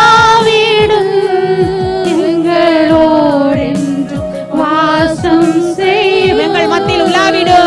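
A woman singing a Tamil worship song into a microphone, her voice carrying a wavering vibrato. Backing music with sustained chords and a steady beat plays beneath her.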